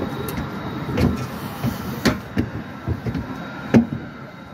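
Footsteps thumping and clanking irregularly on metal aircraft boarding stairs, the loudest knock near the end, over a steady mechanical hum.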